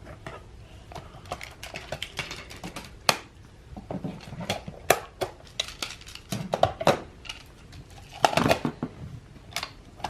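Plastic magnetic building tiles (Picasso Tiles) clicking and clacking against each other as they are picked up and snapped together, in scattered, irregular sharp clicks.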